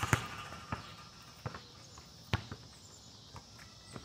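A basketball bouncing on an outdoor asphalt court: a handful of sharp, irregularly spaced thuds, the loudest a bit over two seconds in.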